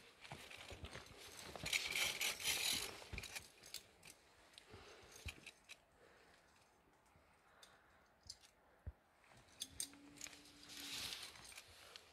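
Faint, irregular metallic clicking and jangling of via ferrata gear, carabiners on the steel safety cable, with scattered footsteps and rustling on rock and dry grass.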